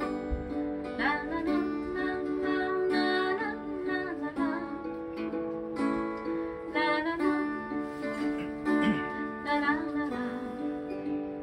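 A woman singing a Japanese song with her own strummed Gibson acoustic guitar.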